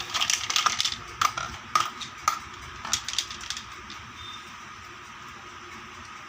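Small plastic toy kitchen pieces and packaging being handled: a quick run of light clicks and rustles, then a handful of separate sharp clicks, after which the handling stops about three and a half seconds in.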